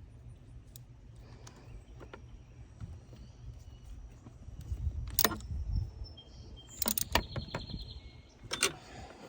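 Ratchet and socket tightening the thermostat housing bolts: sharp metallic clicks and clinks, loudest about five seconds in, in a quick cluster around seven seconds in and again near the end, over a low rumble.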